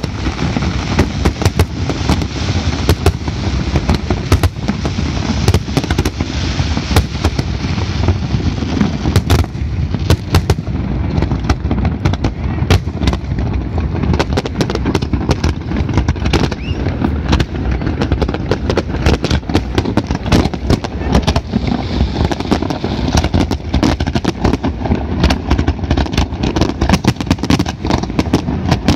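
Large fireworks display going off: a dense, unbroken barrage of bangs and crackling from aerial shells, many sharp reports a second overlapping one another.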